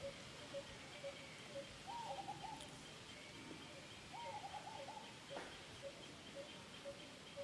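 Birds calling: a steady run of short, low single notes about twice a second, with two brief bursts of quicker, higher notes about two and four seconds in.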